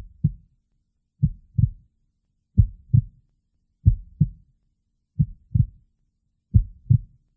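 Heartbeat sound effect: low double thumps, lub-dub, repeating steadily about every 1.3 seconds, six beats in all.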